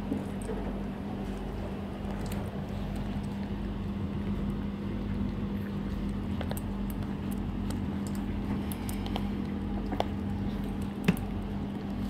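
Puppies eating dry kibble from steel bowls: scattered small crunches and clicks of kibble against the bowls, with a couple of sharper clicks near the end, over a steady low hum.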